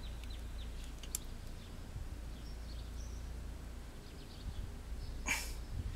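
Steady low outdoor background rumble. A single small click comes about a second in, faint high bird chirps follow in the middle, and a short rustling hiss comes near the end.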